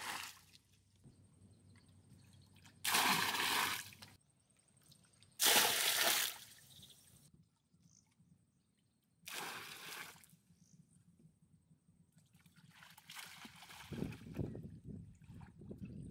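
Water splashing into a pool as it is poured from a pot, in four separate bursts of about a second each. Near the end comes softer sloshing and splashing of a person moving through the water.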